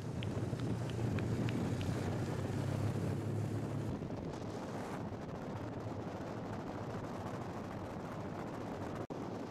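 Wind rushing over the microphone of a camera in a moving vehicle, with a low engine drone in the first few seconds. The sound changes abruptly about four and five seconds in and cuts out for an instant near the end.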